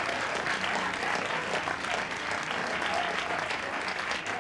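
Theatre audience applauding, a dense steady clapping.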